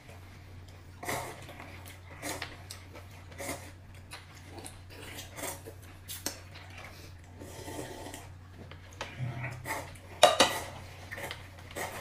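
Eating at a table: chopsticks clicking and scraping in a paper cup of rice noodles, with slurping and chewing. A loud clatter of a plate on a bowl about ten seconds in.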